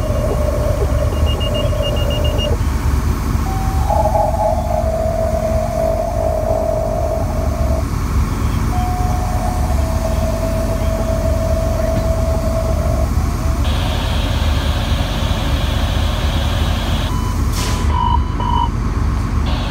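Fire department pager tone-out: two-tone sequential alert tones, each a short higher tone followed by a long steady lower tone, sounding twice, then a few seconds of harsher buzzing tone and a few short beeps near the end. A vehicle engine idles underneath.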